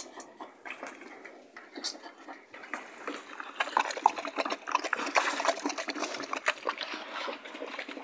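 Pigs eating fruit peels and vegetable scraps: rapid, irregular chewing noises that grow louder and busier about three seconds in.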